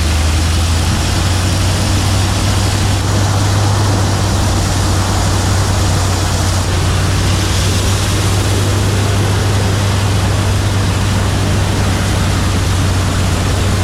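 A heavy engine running steadily with an even machine noise over it, its hum stepping up slightly in pitch about a second in.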